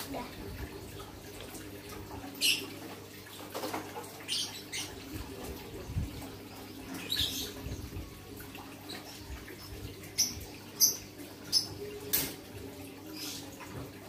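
Lovebird in its cage giving short, sharp chirps, scattered a second or so apart and coming closer together and louder in the last few seconds, over a steady low hum. A young bird only beginning to learn the long 'ngekek' chattering song, its calls still very brief.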